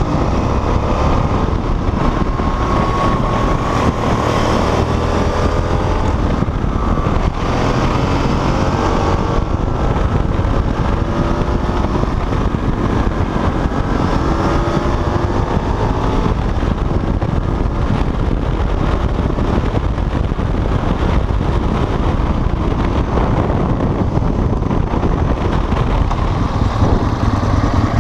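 Motorcycle engine running on the move, its revs rising and falling through the bends, with strong wind noise on the microphone.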